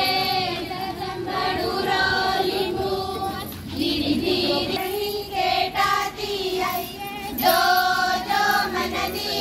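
A group of women and girls singing together in chorus, in short phrases with brief breaks between them.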